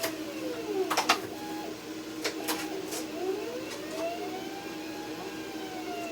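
Electric cutting machine running: its motor whine rises and falls in long sweeps as the cutting head travels, over a steady hum. A few sharp clicks come in the first half.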